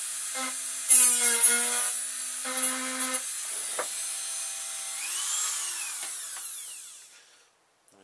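Dremel rotary tool running at high speed against a plastic enclosure, grinding and sanding off the burrs around the cut-outs, with louder grinding when it bites at about one second and again near three seconds. The motor whine then winds down and stops near the end.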